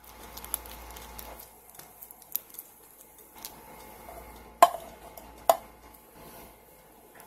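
Plastic freezer bag rustling as canned sloppy joe sauce is poured into it and the bag is handled on a countertop, with scattered small clicks. Two sharp knocks about a second apart, just past the middle, are the loudest sounds.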